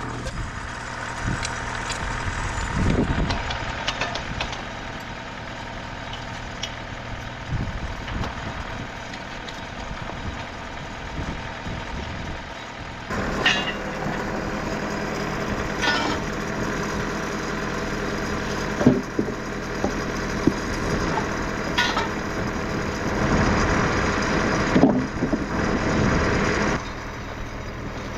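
TimberKing 2520 portable sawmill's engine running steadily to drive the hydraulics while the machine is jacked up for levelling. Its sound steps up and grows fuller about halfway through, and several sharp metallic knocks come every few seconds.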